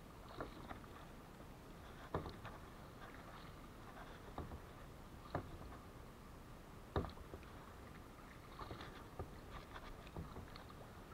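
Kayak paddle strokes: a string of sharp, irregular knocks and splashes every second or two, the loudest about seven seconds in, over a faint steady background.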